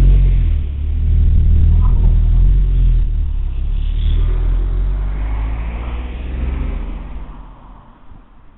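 A motor vehicle's engine running close by, a deep low rumble that fades away over the last second or two.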